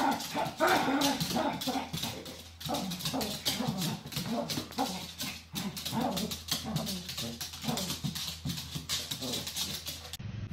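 Dog whining and yipping in a rapid run of short calls, several a second, almost without pause.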